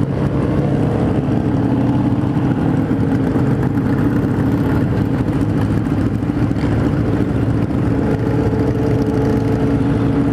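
Kawasaki Z1000's inline-four engine running steadily at low road speed, with the engines of many other motorcycles riding alongside.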